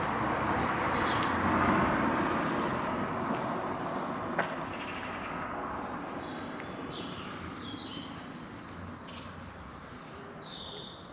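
A rushing outdoor noise that swells over the first two seconds and then slowly fades, with one sharp click about four seconds in. Through the second half, birds chirp in short high calls.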